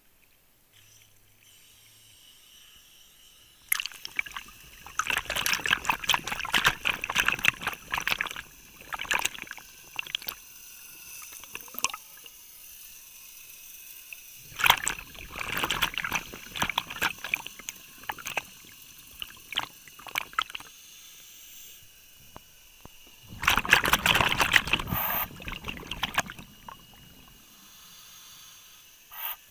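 Air bubbles from a scuba diver's regulator exhaust crackling past the camera underwater as he breathes out on descent, in three long bursts with quieter inhalation gaps between.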